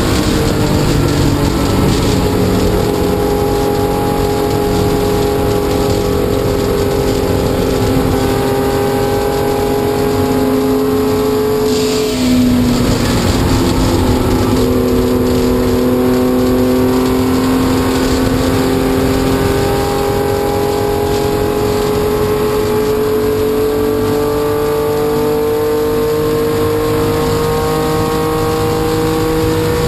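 1972 Porsche 911 RSR's 2.8-litre air-cooled flat-six running at full throttle, heard from inside the cockpit. Its pitch sags slowly for about the first twelve seconds, breaks briefly, then climbs steadily as the car picks up speed.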